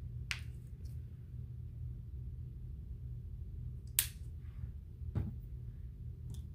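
Light clicks and taps from a plastic acrylic paint bottle handled over a ceramic palette as a dab of paint is squeezed out, with one sharp click about four seconds in, over a steady low hum.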